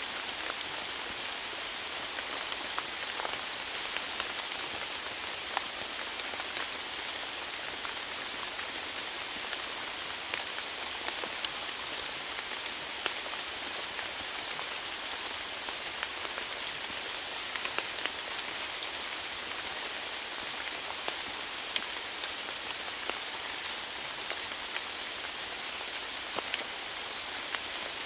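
Steady rain falling on a surface, an even hiss with separate drops ticking here and there.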